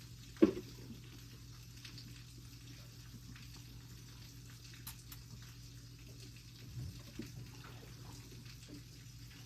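Goat kid drinking milk from a bottle, faint wet sucking and smacking, with one brief loud sound about half a second in.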